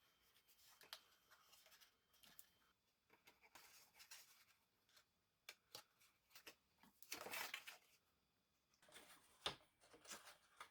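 Faint rustling and small taps of folded cardstock being handled and pressed together as paper tabs are glued, with a longer rustle about two-thirds of the way in and a sharp tick soon after.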